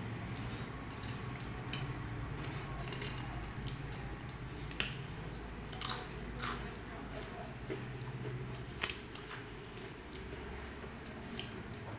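Close-up eating sounds: wet chewing and mouth noises, with a few sharp clicks and crunches, over a steady low hum.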